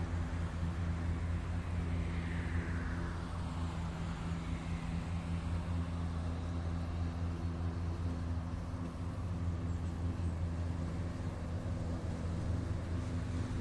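A steady low engine drone that holds the same pitch throughout.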